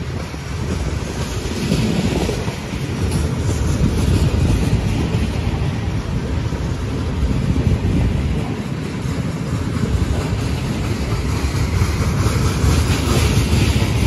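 Loaded open-top freight cars of a freight train rolling past, with the steady noise of steel wheels on the rails.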